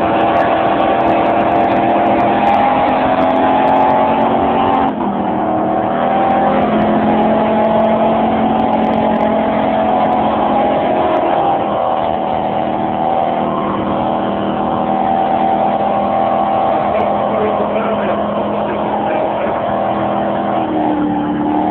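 Toyota's engine held at high revs during a burnout, spinning its rear tyres on the asphalt. The engine note dips briefly about five seconds in, then holds steady again.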